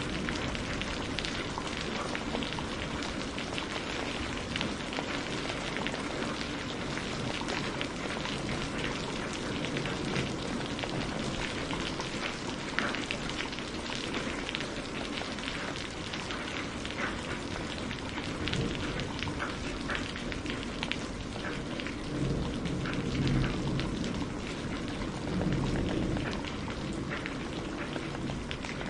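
Steady rain falling, with many individual drops pattering on a surface. A low rumble swells up twice in the last third.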